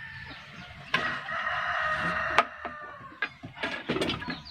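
A rooster crows once, a call lasting about a second and a half. Around it come sharp clicks and knocks from brass airgun tubes and a wooden stock being handled, busier near the end.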